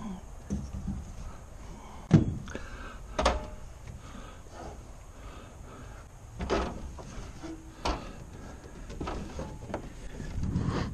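Scattered knocks and clunks as a pontoon boat's hinged storage lid is handled and closed, the loudest about two and three seconds in, then footsteps going down an aluminium stepladder near the end.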